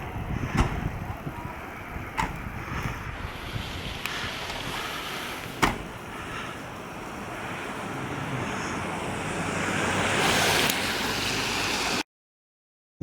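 Outdoor wind noise on the microphone, a steady hiss with a few faint clicks, swelling louder about ten seconds in, then cutting out abruptly about a second before the end.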